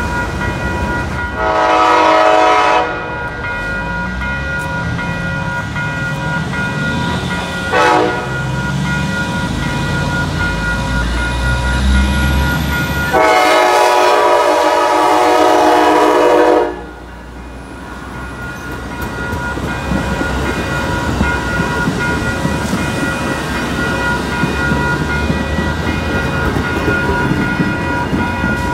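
Freight hopper cars rolling over the crossing under a steadily ringing crossing bell, while an approaching Amtrak Cascades train's Siemens Charger locomotive sounds its multi-chime horn for the crossing. The horn gives a long blast, a short one, then a longer blast that cuts off abruptly, after which the passenger train's rumble builds as it reaches the crossing.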